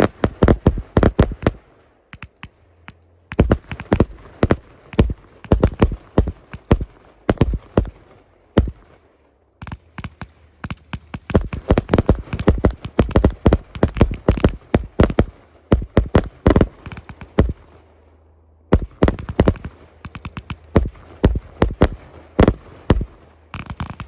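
A 118-shot compound consumer firework cake firing: rapid volleys of sharp shots and bangs, broken by short pauses three times.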